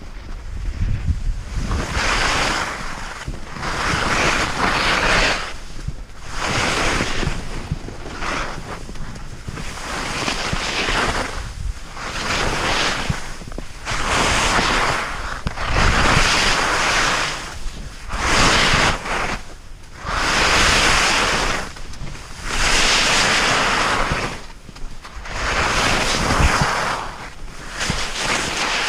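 Edges scraping and hissing across hard, bumpy snow in a run of turns, a surge about every two seconds as each turn bites, with wind buffeting the microphone.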